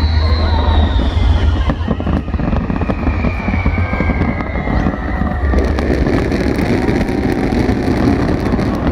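Fireworks display with a steady low rumble and scattered pops. A long tone falls slowly in pitch through the first half, then dense crackling sets in from about five and a half seconds in.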